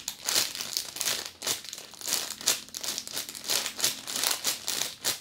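Clear plastic packaging bag around a squishy toy crinkling as it is handled, in quick irregular rustles throughout.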